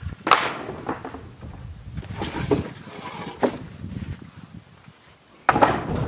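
A series of about five sudden knocks and thumps at irregular intervals, with the loudest and longest near the end.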